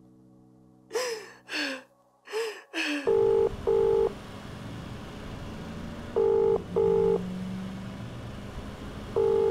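A woman crying in a few short sobs, then a British telephone ringing tone, the double "ring-ring" followed by a pause, repeating three times over a low steady background rumble.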